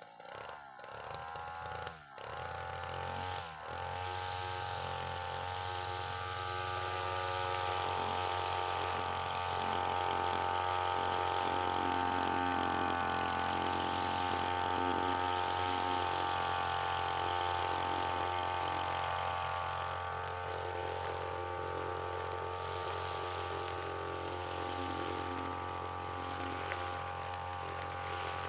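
UMA UM328 brush cutter's small two-stroke engine starting up, its speed sagging and picking up a few times over the first few seconds before it settles and runs steadily with no cutting load.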